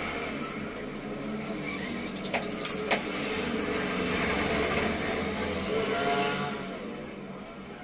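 Road traffic going past: vehicle engines running, swelling as a motorbike passes about six seconds in. Two sharp knocks about half a second apart come a little over two seconds in.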